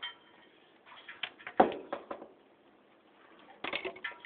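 A few sharp clicks and knocks of hand cutters snipping the plastic ends off ceiling-fan pull chains, with the parts being handled on the workbench. The loudest knock comes about a second and a half in, and more clicks follow near the end.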